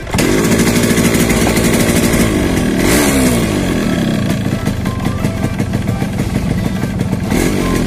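Yamaha RX 115's two-stroke single-cylinder engine running with the choke held on. It runs steadily at first, is revved up and down briefly about three seconds in, then runs on less evenly. It will not start or keep running without the choke, a fault the mechanic puts down to the carburettor.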